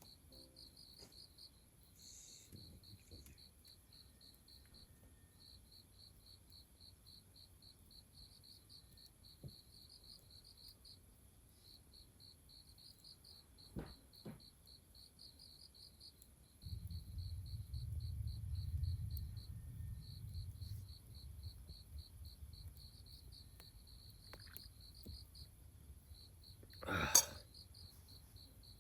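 Night insects chirping in steady, evenly pulsed high trills over a thin continuous high whine. A few faint pops and one sharp crack near the end, typical of a campfire, and a low rumble for a few seconds midway.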